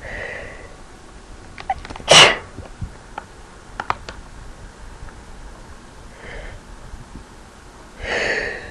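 A person's induced sneeze: a short breathy wind-up, then one loud, sharp sneeze about two seconds in. Near the end comes a breathy, catching intake as the next sneeze builds.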